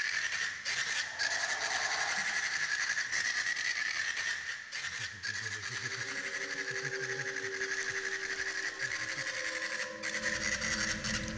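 Steady crackling hiss with a bright band in the upper middle. About halfway through, a few sustained low tones join it, like an electronic ambient soundscape.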